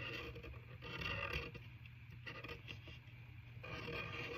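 Scraping and rustling of paper craft materials being handled on a table, in three short stretches.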